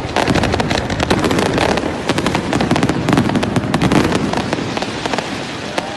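Fireworks display: aerial shells bursting in a rapid, continuous run of sharp cracks and bangs over a steady rumble.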